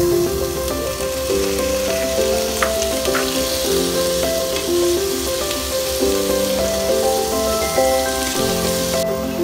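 Sliced onion, carrot, bell pepper and pineapple sautéing in oil in a frying pan, a steady sizzle that cuts off suddenly near the end. A light background melody plays along with it.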